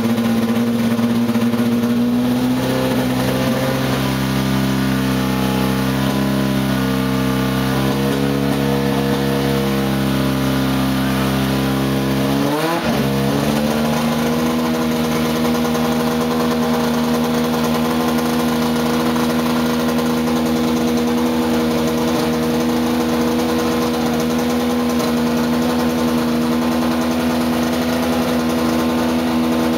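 Benetton turbo Formula One engine running steadily at a high, even pitch. About halfway through the revs briefly dip and rise again with a quick blip, then settle back to steady running.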